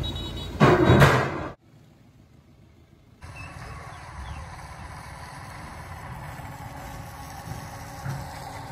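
Vehicle noise on a steel-decked Bailey bridge: a loud, uneven burst in the first second and a half while a loaded truck crosses, then, after a brief drop to near quiet, the steady low engine of a CNG auto-rickshaw running as it approaches.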